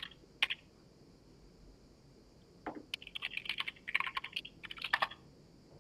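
Computer keyboard typing while login credentials are entered: a couple of keystrokes, a pause of about two seconds, then a quick run of keystrokes lasting about two seconds.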